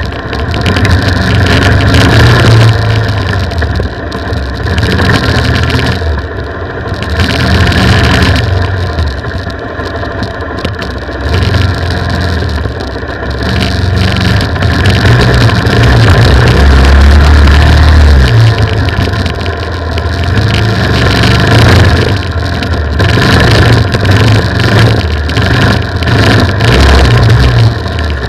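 Off-road motorcycle engine heard close from the bike, revs rising and falling every few seconds as the throttle is worked over rough trail, with a heavy low rumble on the microphone.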